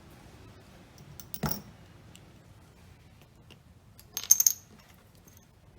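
Small metal parts clattering on a hard work surface during the removal of the iPhone's pentalobe screws: a few light clicks and a knock about one and a half seconds in, then a brief bright, ringing metallic clatter about four seconds in.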